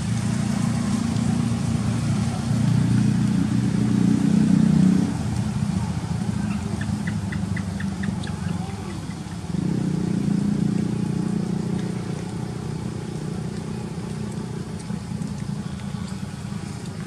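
Low, steady motor drone, like a vehicle engine running close by, swelling over the first five seconds and again from about ten seconds in. A short run of quick high ticks comes in the lull between.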